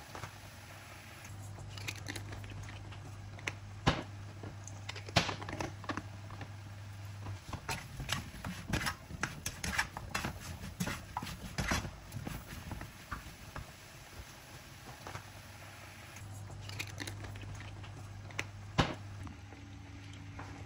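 A cooking spoon knocking and scraping against a non-stick wok as a roux and white sauce are stirred: a run of irregular clacks, thickest through the middle, over a steady low hum.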